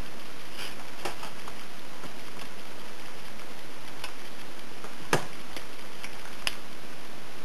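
Drawing tools clicking and tapping on card as dots are drawn: a handful of sharp, separate clicks, the loudest about five seconds in, over a steady hiss.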